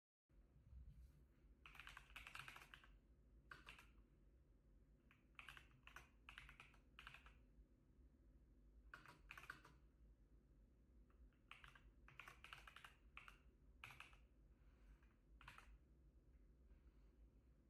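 Typing on an RK Royal Kludge S98 mechanical keyboard with tactile switches: faint short runs of keystroke clicks with pauses of a second or two between them.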